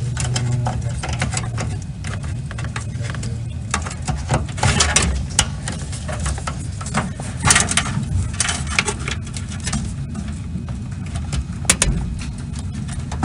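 Computer power cables and plastic connectors being handled and pushed onto drives: scattered clicks, scrapes and rustles, busiest about four, seven and eleven seconds in, over a steady low hum.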